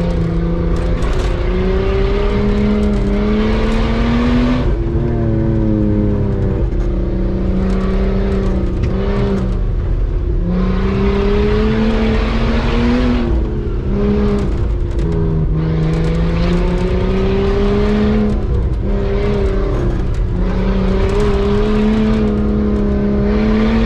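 Nissan Patrol Y60 with a swapped-in Nissan Skyline RB25 turbo straight-six, heard from inside the cabin while driving. The engine pitch climbs and then drops back several times as it pulls through the gears.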